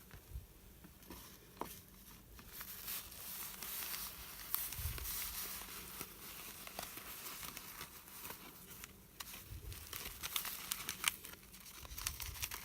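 A small packet being handled and opened, its crinkly wrapping rustling and crackling close to the microphone, busier from a couple of seconds in.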